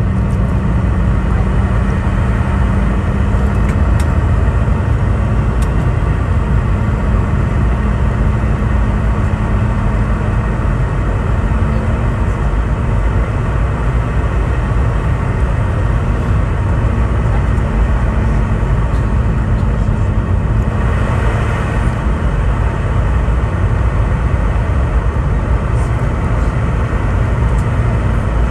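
Steady cabin noise inside a Boeing 717: a low, loud drone of rushing air and engines, with a steady hum underneath. About two-thirds of the way through, the hiss briefly grows brighter for a second or two.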